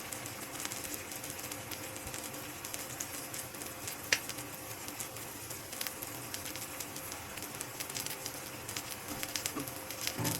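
Steady sizzling with fine, dense crackling, typical of food cooking over heat, with one sharp click about four seconds in.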